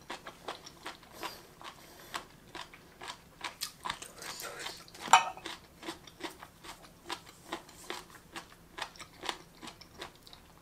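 Close-miked chewing of crunchy, gelatinous sesame-marinated jellyfish: crisp little crunches and mouth clicks several times a second, with one much louder sharp crack about halfway through.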